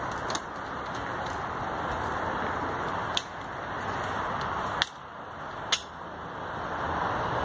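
Four short, sharp knocks of bamboo poles shifting against each other as a person climbs inside a pole-frame sphere, over a steady hiss of outdoor background noise.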